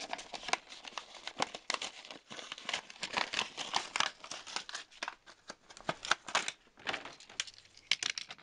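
Toy blister pack being torn open by hand: the clear plastic blister and cardboard backing card crinkle and tear in irregular crackles.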